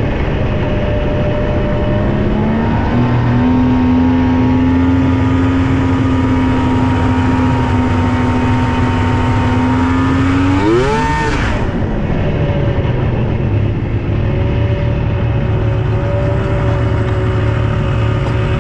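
Yamaha SX700R snowmobile's three-cylinder two-stroke engine running at a steady pitch under way. About ten seconds in it revs up sharply in a quick rising sweep, then settles back to a steady run.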